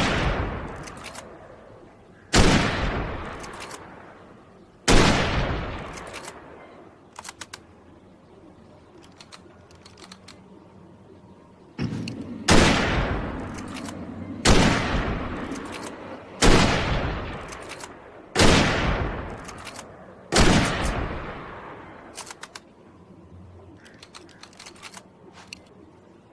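Remington Model 7 bolt-action rifle firing seven single shots, each followed by a fading echo lasting about two seconds. Two shots are a few seconds apart, then after a pause comes a run of five about two seconds apart. Quick clusters of small metallic clicks fall in the gaps between shots.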